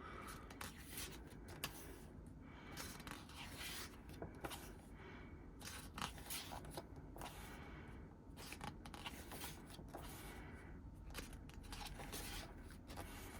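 Faint paper rustling and soft scraping as the pages of a K-pop album photobook are turned and handled.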